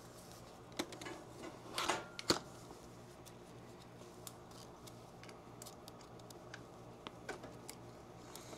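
Plastic filament spool being handled and pushed onto a Bambu Lab AMS lite spool holder: a few sharp plastic clicks and short scrapes, the loudest about two seconds in, with light ticking in between. A steady low hum runs underneath.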